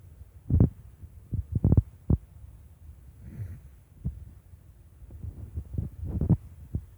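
Low rumble on the microphone with irregular thumps, loudest about half a second in, just under two seconds in and again near the end.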